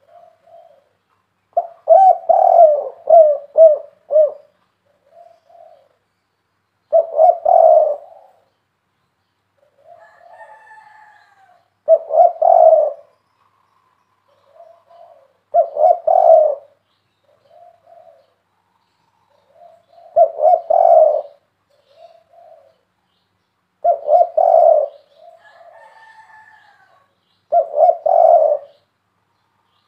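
Spotted dove cooing: a loud phrase of a few deep notes about every four seconds, with soft short notes in between. This is the bird's three-part 'kuk 3' song.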